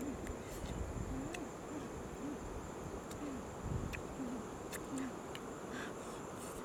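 Short, low animal calls repeating every half second to a second, over a steady high-pitched insect drone with scattered sharp clicks.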